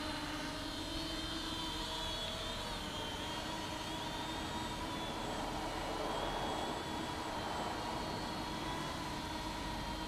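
Eachine E58 pocket quadcopter's motors and propellers whining steadily, a hum of several tones whose pitch wavers slightly as the throttle shifts.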